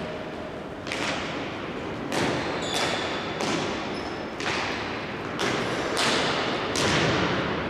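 Indoor hockey play: about nine sharp, irregular knocks of sticks striking the ball and the ball hitting the boards, each echoing in the hall, with a few brief high squeaks between them.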